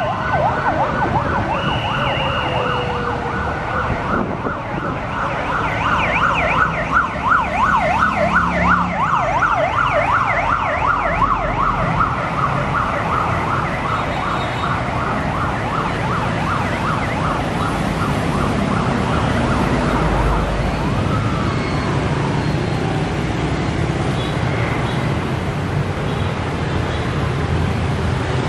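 Siren of a military motorcade escort wailing in a rapid yelp, quickly rising and falling over and over. It stops about twenty seconds in after one last falling tone. Steady road traffic of cars and motorbikes runs underneath and carries on alone.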